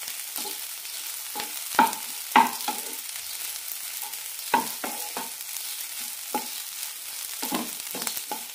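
A wooden spatula scraping and knocking against a nonstick frying pan as it stirs and tosses a dry, crumbly tapioca-and-broken-wheat puttu mixture. The strokes come irregularly, a few sharper knocks among softer scrapes, over a faint steady hiss from the hot pan.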